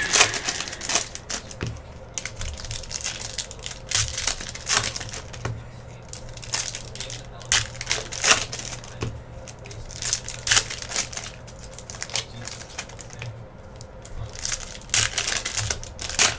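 Foil wrappers of Panini Donruss Soccer hobby packs crinkling and tearing as they are ripped open by hand, with the cards inside being pulled out and handled. Irregular sharp crackles come every second or so.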